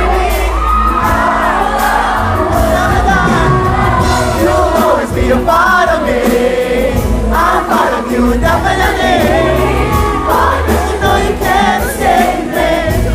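Live concert music heard from the audience: a lead singer's voice sliding up and down through long runs over the band, with backing singers and crowd noise.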